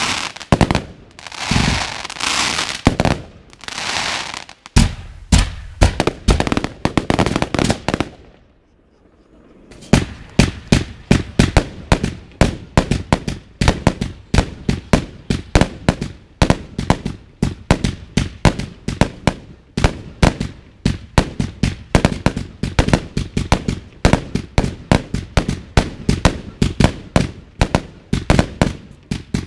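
Firework battery (cake) firing from the ground. It opens with swelling crackling bursts, each about a second long, then a few sharp reports and a brief lull. After that comes a rapid string of shots and bangs, several a second.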